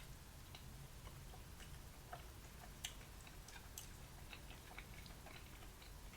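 Faint chewing with small, irregular wet mouth clicks, a couple a little sharper about three and four seconds in.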